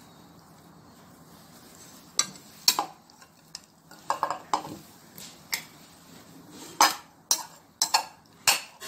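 Metal soup ladle scraping and clinking against a ceramic bowl while scooping fruit salad, a string of sharp clinks starting about two seconds in.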